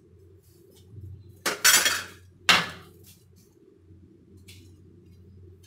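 Metal utensils clattering against a stainless-steel mixer jar, twice: a longer rattle about a second and a half in, then a short clink a second later.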